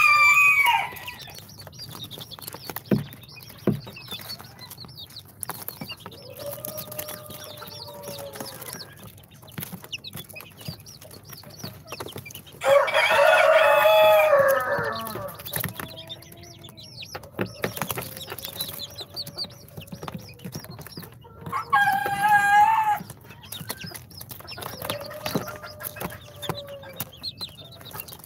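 Chickens calling: soft drawn-out calls come every few seconds, with one loud, long call about 13 seconds in and a shorter, higher loud call near 22 seconds.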